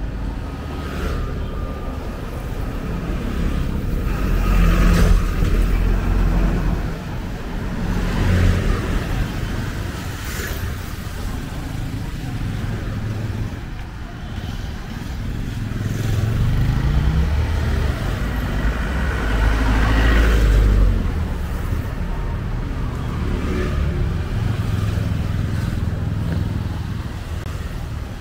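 Street traffic of motorcycles and scooters passing close by, the engine noise swelling and fading as each goes past. The loudest passes come about five seconds in and again about twenty seconds in, and one engine revs up in between.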